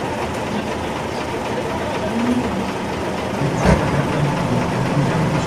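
Diesel engines of Tatra trial trucks running on a dirt climb, with a sharp knock about three and a half seconds in, after which the engine note steadies and rises slightly as a truck works under load, puffing black smoke.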